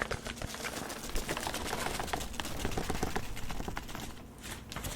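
Rapid, irregular clicking and crackling from small objects being handled or tapped, thinning out near the end.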